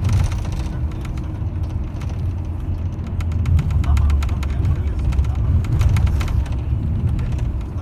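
Low rumble of engine and road noise inside a moving bus, with a run of light rattling clicks through the middle.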